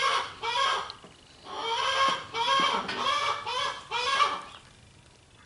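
Domestic duck quacking in quick runs of short, repeated calls: a couple of quacks, a brief pause about a second in, then a run of six or so more that stops about a second before the end.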